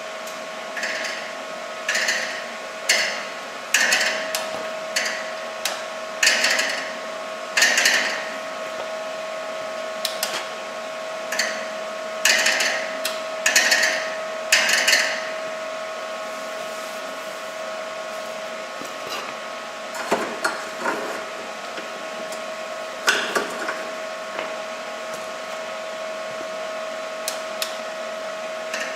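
Workshop metalworking noise: a run of short, sharp bursts about once a second for some fifteen seconds, then a few scattered ones. A steady electrical hum runs underneath.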